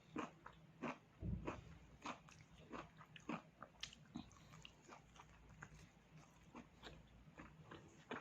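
Close-up chewing and biting of pork: a run of short, irregular mouth clicks and crunches, louder and thicker in the first couple of seconds.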